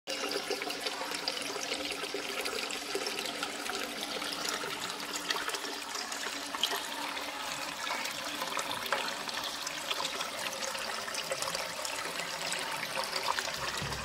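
A thin stream of water trickling and splashing down over rocks into a small rock pool: a steady, even hiss with many small splashes.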